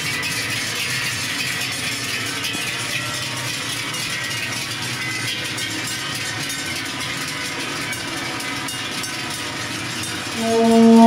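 Many large cowbells on a passing herd of cows clanging together in a continuous, dense jangle. Near the end a loud brass instrument begins a held note.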